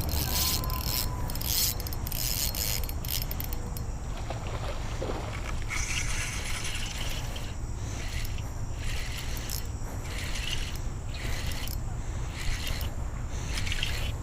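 Fishing reel working in irregular scratchy, ratcheting bursts while a hooked carp is played, over a steady low rumble.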